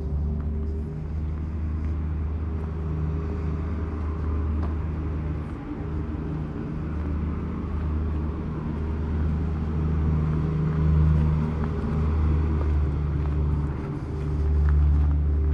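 An engine running steadily with a low, even hum that swells slightly a couple of times.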